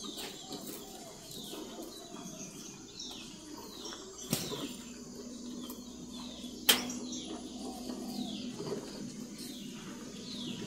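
Short high bird chirps, each falling in pitch, repeating about once a second. Two sharp knocks sound, the louder about two-thirds of the way through, and a low steady hum comes in about halfway.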